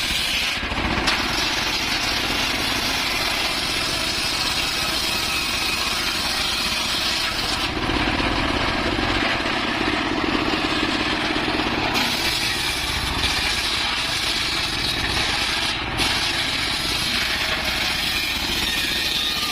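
Engine-driven circular saw running and cutting wood, a continuous loud machine sound whose tone shifts every few seconds, most clearly between about 8 and 12 seconds in.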